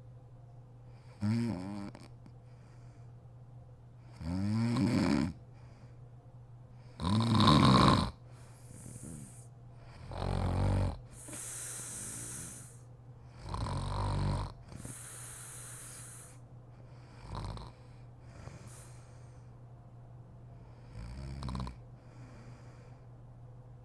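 A sleeping woman snoring: about seven snores, one every two to four seconds, each bending up and down in pitch, with breathy hissing breaths between them. A steady low hum lies underneath.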